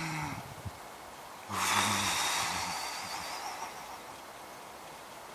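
A man's heavy, rasping breath, loudest about a second and a half in and trailing off over the next two seconds, after a short softer breath at the start. A sharp click comes right at the end.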